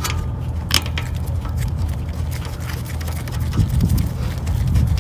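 Small irregular metallic clicks and taps of a 14 mm wrench threading in and tightening the lower bolt of a rear brake caliper, one sharper click about a second in, over a steady low hum.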